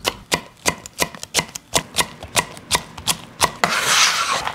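Chef's knife slicing fresh red chili peppers on a wooden cutting board, about three even chops a second, each a sharp knock of the blade on the board. Near the end the chopping stops and a short rushing, scraping noise follows.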